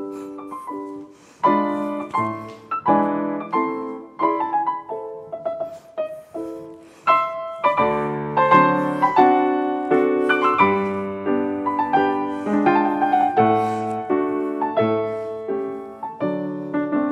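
Solo piano playing ballet class accompaniment: struck chords under a melody, each note dying away, growing louder about seven seconds in.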